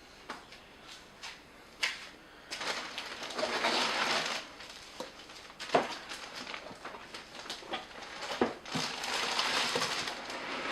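Packaging rustling and scraping in two long stretches, with a few sharp knocks, as a 3D printer part is lifted out of its box.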